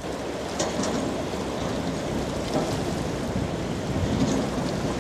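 A container ship's wake wave breaking and rushing along a muddy riverbank: a steady surf-like wash with a low rumble and a few brief splashes.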